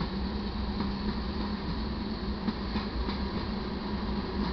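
Loaded taconite ore hopper cars of a freight train rolling past, their steel wheels on the rails making a steady, unbroken noise.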